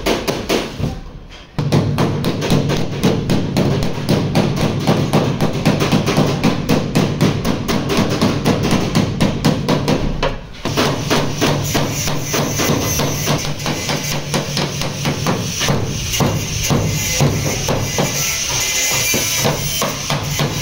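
Panel-beating hammer striking the dented steel sheet metal of a car door in quick, regular blows, knocking the bent panel edge back into shape. The blows break off briefly about a second in and again about halfway. Background music plays underneath.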